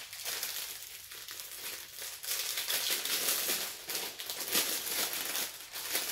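Clear plastic packaging crinkling and rustling as baby clothes are handled and pulled from their bags, busier and louder from about two seconds in.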